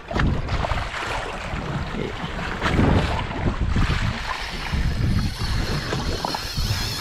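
Wind buffeting the microphone over open sea, with water washing against the boat's hull in uneven gusts.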